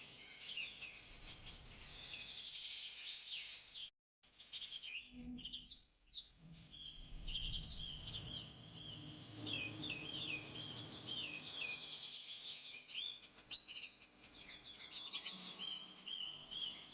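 Small birds chirping and twittering in quick, high, repeated notes, with the sound cutting out completely for a moment about four seconds in.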